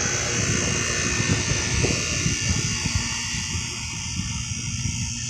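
Carrier 38CKC and 38CKB air conditioner condensing units running in cool mode, with steady fan noise and a constant electrical hum and buzz from the compressors. The noise eases a little about three seconds in.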